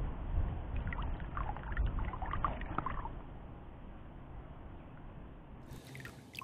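Water sloshing and splashing in small irregular bursts over the first three seconds, with a low rumble underneath, then dying down to a quieter murmur.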